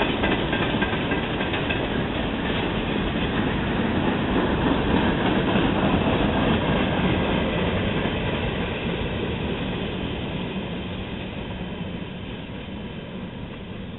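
Freight train cars (centerbeam flatcars, boxcars and tank cars) rolling past, their wheels rumbling and clacking over the rails. The sound fades steadily from about eight seconds in as the end of the train passes and moves away.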